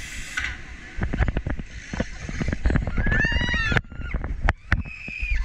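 Log flume boat running along its water chute, knocking and rattling over a low rumble of water and wind. A brief high squeal rises and falls about three seconds in.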